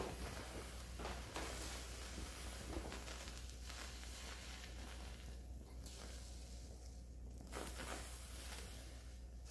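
Wooden matchsticks of a small matchstick house burning, with irregular crackles over a soft hiss of flame and a brief flurry of crackling near the end as loose match heads flare up. A steady low hum runs underneath.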